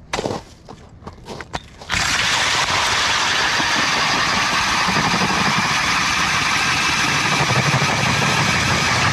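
A few faint clicks, then about two seconds in a loud, steady, engine-like running noise starts and holds until it cuts off near the end.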